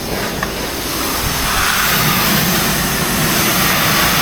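Pressure washer running, its engine droning under the hiss of high-pressure water spray, getting louder about a second in.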